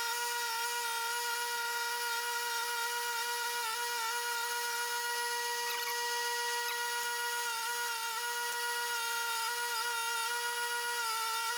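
Power tool motor spinning a soft wire wheel, a steady whine with a hiss of wire brushing over it. The pitch dips briefly several times as sockets are pressed against the wheel.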